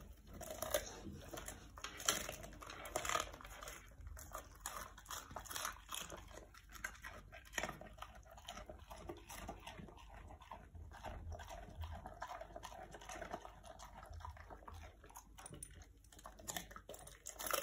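Dog chewing raw cabbage leaves and core: a quick, irregular run of small crunches.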